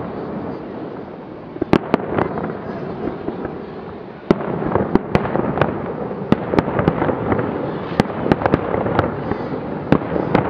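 Fireworks display: aerial shells bursting in an irregular run of sharp bangs and crackles over a steady background rumble, growing denser and louder about four seconds in.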